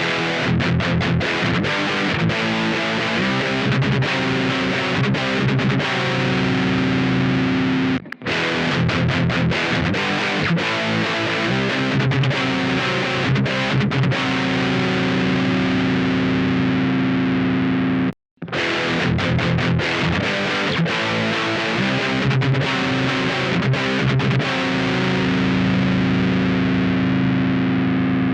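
Electric guitar with distortion and effects, played as three takes of about ten seconds each with brief silent gaps between them: the same passage recorded through different TRS patch cables for a blind comparison.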